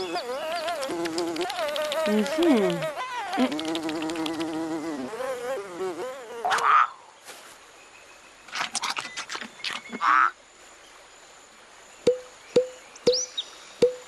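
A cartoon fly buzzing with a wavering, wobbling pitch for about six seconds. Two shorter buzzing passes follow. Near the end come four short, sharp falling blips.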